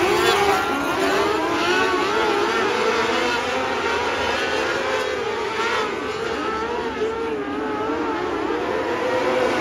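Several small open-wheel dirt-track race cars running laps together, their high-revving engines rising and falling in pitch as they go through the corners.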